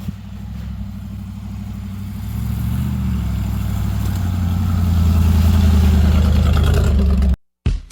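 Jeep engine running as it drives: a steady low drone that grows louder over the first few seconds, then cuts off abruptly near the end.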